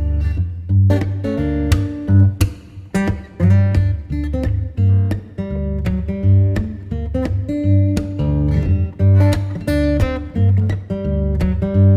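Background music: acoustic guitar strumming and picking notes over a steady bass.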